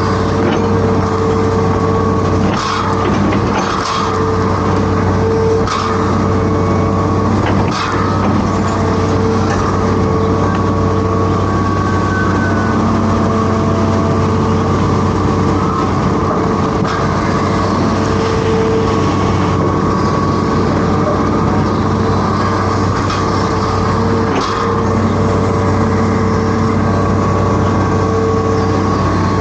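Hitachi Zaxis 210F amphibious excavator's diesel engine running steadily, with several sharp knocks or clanks: four in the first eight seconds and one near the end.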